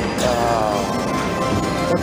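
Electronic music and sound effects from a Moon Race video slot machine as its last free game ends, with a falling swoop near the start.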